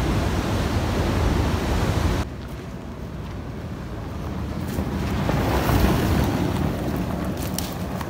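Wind noise on a phone microphone, loud and low, cutting off abruptly about two seconds in. A quieter outdoor wind rush follows, swelling in the middle, with a few light clicks near the end.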